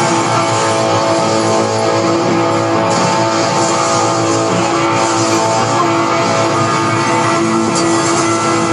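Guitar music, with notes and chords held steady at an even loudness.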